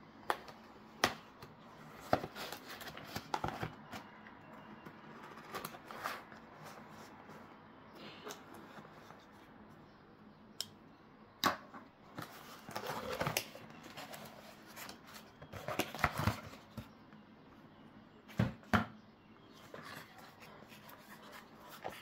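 Cardboard shipping box being cut open and unpacked by hand: a knife blade slitting the packing tape, then irregular taps, scrapes and rustles of cardboard and tape being handled.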